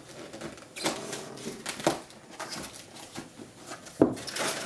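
Cardboard shipping box being opened by hand: packing tape slit and pulled, and the flaps scraped and rustled open, with a sharp knock on the table about four seconds in.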